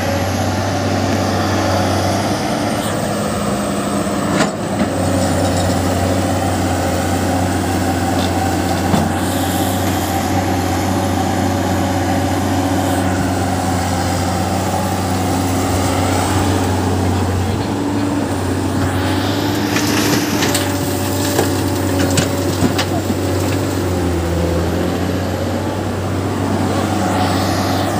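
Heavy diesel machinery, excavators and dump trucks, running steadily with a deep engine hum, and a few sharp knocks and clanks along the way.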